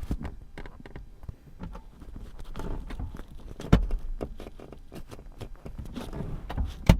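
Sliding rear seat of a BMW F46 2 Series Gran Tourer being pushed along its rails and jiggled: a run of clicks and knocks, with two sharp thuds about three and a half seconds in and near the end as it locks into place. The seat rails still squeak despite anti-squeak felt tape stuck onto them.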